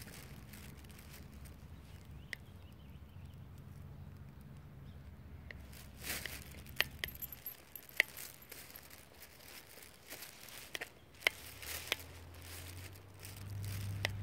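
Footsteps on asphalt with scattered sharp clicks and light jingling, typical of a dog's metal leash clasp and harness hardware, over a low steady rumble that fades about halfway through.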